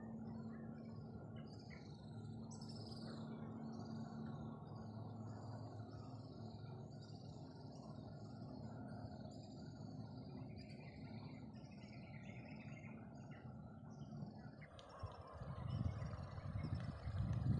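Small birds chirping and twittering in quick repeated notes over a steady low background noise. Near the end a louder, uneven low noise comes in.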